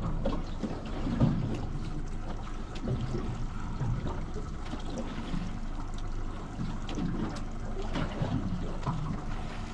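Water slapping and lapping against the hull of a drifting boat, an uneven low wash with a few faint knocks.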